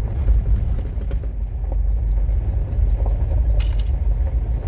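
Road noise inside a vehicle driving on a rough dirt road: a steady low rumble from the tyres and suspension, with a few light rattles and one sharper knock about three and a half seconds in, as loose items shift in the back.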